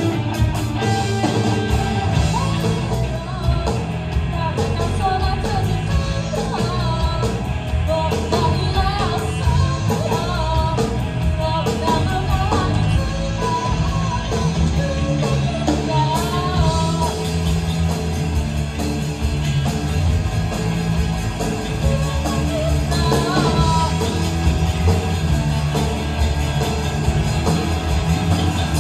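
A live rock band playing through a PA: electric guitars and a drum kit, with a vocalist singing into a microphone.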